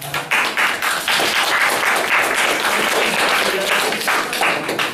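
Audience applauding, a dense patter of many hands clapping that starts just after the beginning and dies away near the end.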